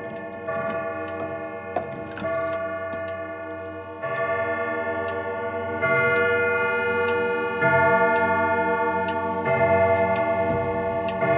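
Grandfather clock's Hermle triple-chime movement with its hammers striking the chime rods. A new ringing chord of notes sounds about every two seconds, each note sustaining into the next, with the movement's ticking underneath.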